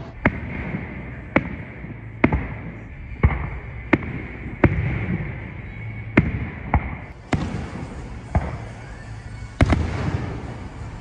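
Fireworks show: aerial shells bursting in sharp bangs, about a dozen of them, one every second or so.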